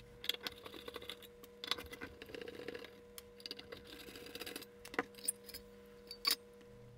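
Small sheet-metal shielding box being handled and lifted off a circuit board: scattered light clicks, taps and clinks of thin metal against the board and bench, with two sharper clicks about five and six seconds in. A faint steady hum sits underneath.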